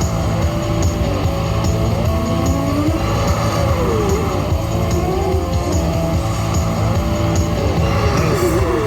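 Loud, steady game music from a racing-themed slot machine: a rock-style track with a low beat and repeated tones that slide down and back up in pitch about every two seconds.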